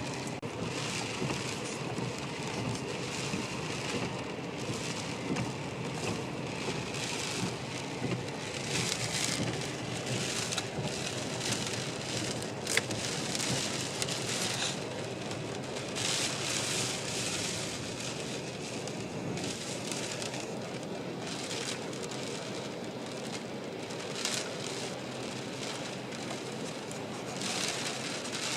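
Rain and gusting wind against a truck, heard from inside the cab: a steady wash of noise with hissing surges every few seconds.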